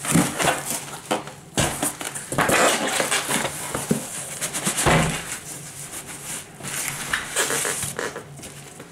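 A shipping package being opened by hand: irregular crinkling, tearing and scraping of the box and its packing material, in uneven bursts.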